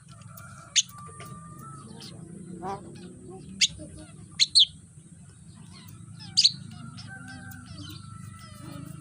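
Javan myna calling: five or six sharp, loud chirps at irregular intervals, with softer chattering and a held whistle between them.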